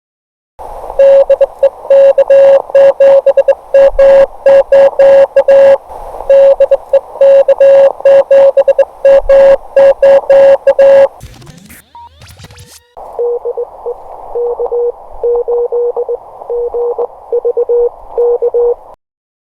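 Morse code (CW) from an amateur radio transceiver. First comes a loud keyed tone with sharp clicks for about ten seconds, then a brief gliding sound about 12 seconds in. After that a fainter, slightly lower keyed tone runs over radio hiss until near the end.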